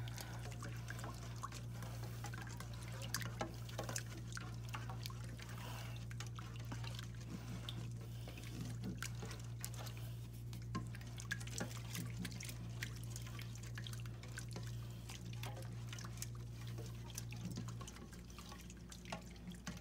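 Runny, soupy glue-and-borax slime being stirred with a spoon in a stainless steel mixing bowl: wet sloshing and dripping with many small clicks of the spoon. The slime has not yet thickened.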